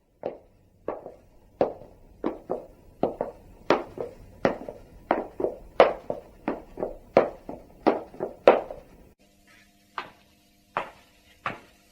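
Footsteps of hard-soled leather dress shoes (pantofel) on a hard floor, about two sharp clicking steps a second, some heard as quick heel-and-toe pairs. About nine seconds in the steps thin out and a faint steady hum appears behind them.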